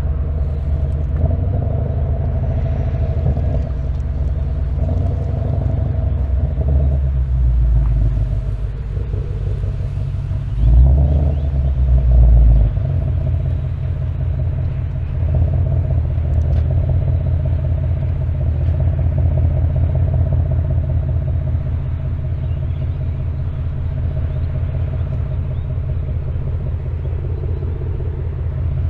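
2025 Ford Mustang GT's 5.0-litre V8 rumbling steadily while driving, with two short louder low surges about eleven and twelve seconds in.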